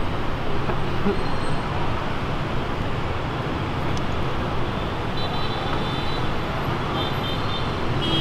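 Steady roar of busy city street traffic heard from above, with a few short horn toots in the second half.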